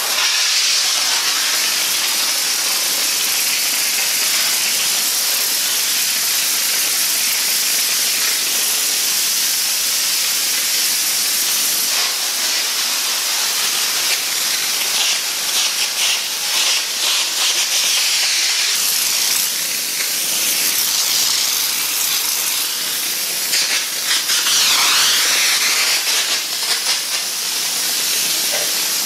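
A steam cleaner's wand jets high-pressure steam onto a car's body. It makes a loud, steady hiss that flutters in level in the middle and near the end.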